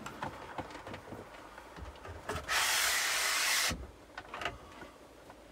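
Light handling and rubbing sounds of paper towel working talc around a sunroof seal. About two and a half seconds in comes a loud steady hiss lasting just over a second, then a few faint ticks.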